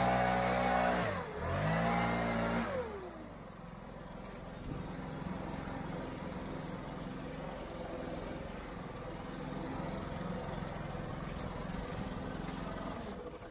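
Gas leaf blower running at high throttle. Its pitch dips and recovers about a second in, then falls away about three seconds in to a quieter, steady low idle.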